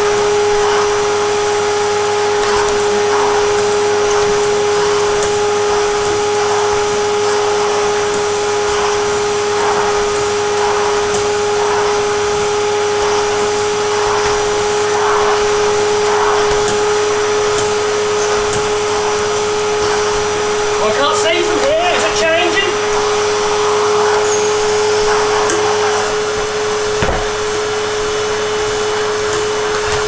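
A 20-year-old Numatic Henry tub vacuum cleaner running steadily with a constant whine. Its floor nozzle is swept back and forth over a rug, giving a light swish about once a second.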